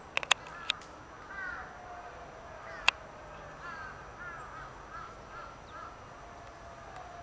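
Short animal calls in small groups, each bending down in pitch, with a few sharp clicks at the start and one loud click about three seconds in.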